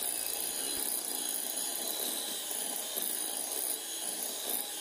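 Electric hand mixer running steadily at its lowest speed, its beaters churning thick sponge-cake batter in a glass bowl.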